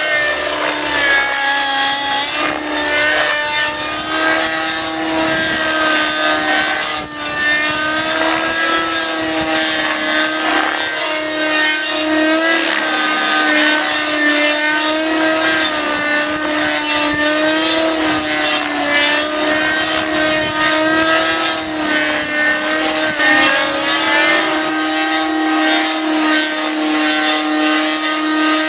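Two-stroke glow (nitro) engine of a 50-size Compass 3D Plus RC helicopter running at high revs in flight, its whine wavering up and down in pitch as the helicopter is thrown through aerobatic manoeuvres.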